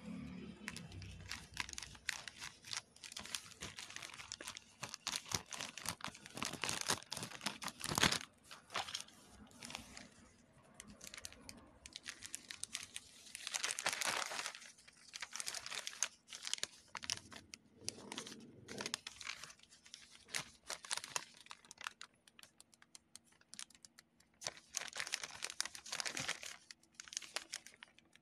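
Plastic courier mailer and its inner packaging being handled and torn open by hand: a continuous crackle of crinkling plastic, with louder flurries about 8 and 14 seconds in and again near the end.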